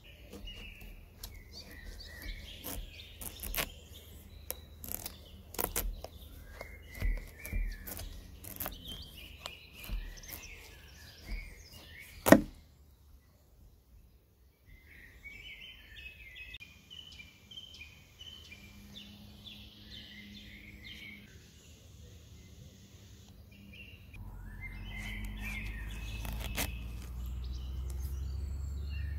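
Knife cutting a whole small watermelon on a wooden table: scattered clicks and knocks of the blade and the handling, with one sharp loud crack about twelve seconds in. Birds chirp throughout, and a low rumble swells in near the end.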